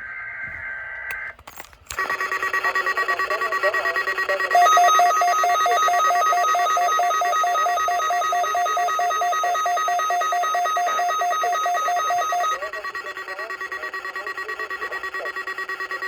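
A short buzz of EAS digital header data, then several weather alert radio receivers alarming at once: steady tones begin about two seconds in, and a rapid beeping of roughly five beeps a second joins them and stops near the end. The alarms are set off by the digital header of a weekly test broadcast, with no 1050 Hz warning tone.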